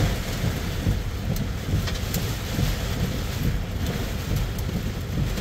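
Heavy rain and strong storm wind heard from inside a pickup truck's cab: a steady wash of rain on the roof and windshield with scattered sharp drop hits over a low rumble of gusting wind.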